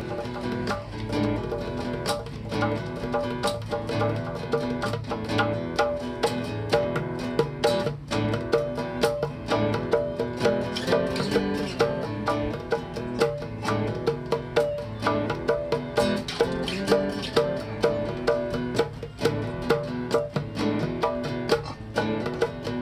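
Background music: a fast plucked-string tune with a quick, even picking rhythm.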